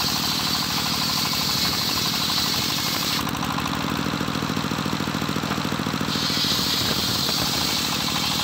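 A homemade engine-driven circular saw bench ripping a plank of johar wood, the engine running steadily under the blade. The high hiss of the blade in the wood drops out about three seconds in and comes back about three seconds later as the next cut starts.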